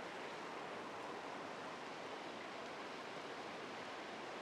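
Steady, even rush of a rocky stream running over rapids.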